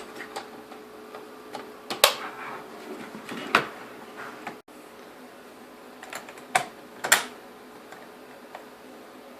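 Parts of a car climate-control unit being handled and fitted together during reassembly: several separate sharp plastic clicks and knocks, the loudest about two, three and a half and seven seconds in.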